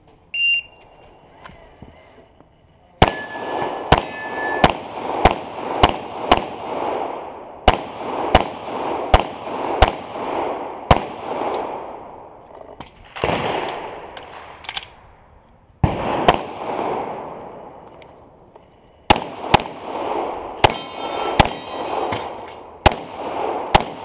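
Shot timer start beep, then a competition pistol string: about twenty shots, fired about half a second to a second apart, broken by a few pauses of one to three seconds, each shot with an echoing tail.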